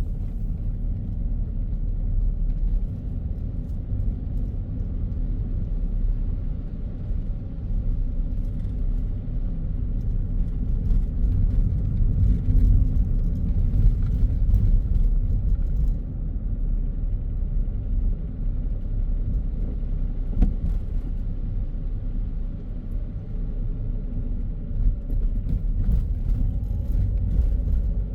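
A car driving along at a steady pace, its road and engine noise a continuous low rumble.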